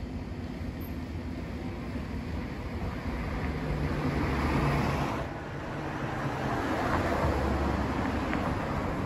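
Street traffic: vehicles passing on the road, the noise swelling to a peak a little before halfway, dropping off suddenly, then swelling again.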